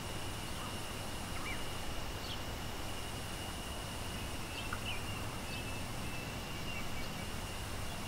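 Waterfall rushing steadily, with a constant high-pitched drone over it and a few short bird chirps scattered through.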